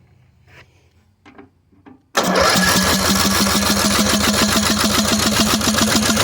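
Old riding lawnmower's small engine, turned over on its cleaned and refitted starter, comes on suddenly about two seconds in and keeps going with a loud, steady, rapid chugging. Faint clicks of handling before it.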